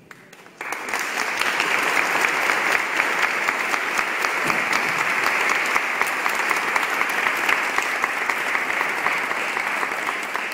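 A large congregation clapping together, applause that starts about half a second in and holds steady.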